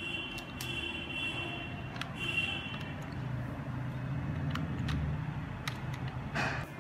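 Keystrokes on a computer keyboard as letters are typed one at a time: about eight separate clicks spread out, with a louder, longer one near the end. Under them runs a steady low rumble, and a faint high steady tone sounds twice in the first three seconds.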